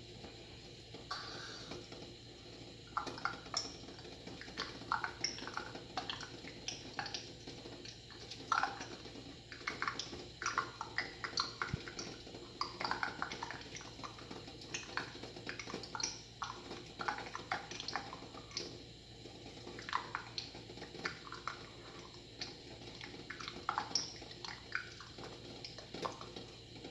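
Water bubbling in a cooking pot, with many small irregular pops over a low steady hum.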